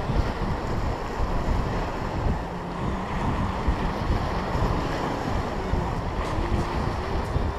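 Wind buffeting the microphone over the steady wash of waves breaking against the rocks of a jetty.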